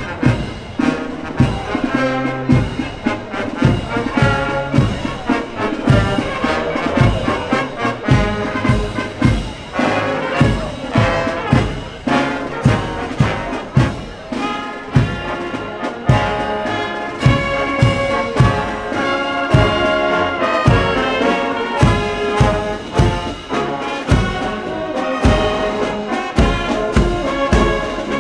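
Marching brass band playing, with trumpets, trombones, tubas and saxophones, over a steady drum beat of about two strikes a second.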